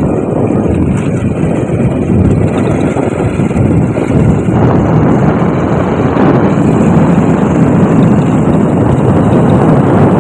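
Steady wind rush over the microphone mixed with engine and road rumble from a moving vehicle, growing a little fuller about halfway through.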